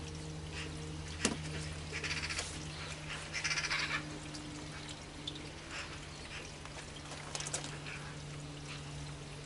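Vent cap on a portable outboard fuel tank being twisted open by hand: a click, then a few short scratchy bursts, over a faint steady hum.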